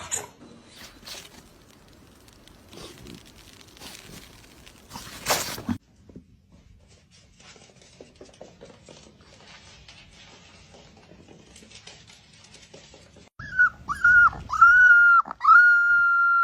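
A dog whining in a high, thin voice: a few short whines, then one long held whine near the end. Before that there are only faint clicks and scuffles and one brief rustling burst.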